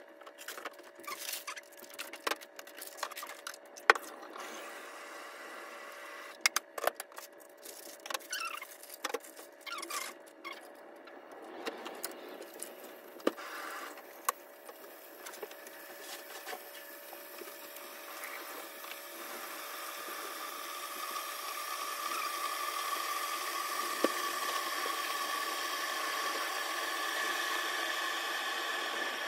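Kitchen items being handled at a counter, with scattered clicks and knocks, then an electric kettle heating water for instant noodles: a hissing rush that swells gradually in the second half and holds steady, louder than the handling. A faint steady hum runs underneath.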